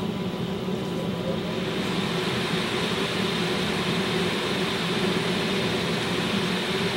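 Water-cooling system for a CNC spindle running just after switch-on: a radiator fan blowing air, with the submersible pump, as a steady whooshing noise over a low hum. The air noise grows a little about two seconds in.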